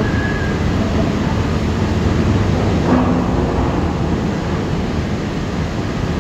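Overhead grab crane running under test: a steady, loud mechanical rumble of its hoist and grab machinery as the clamshell bucket is worked, with a brief knock about halfway through.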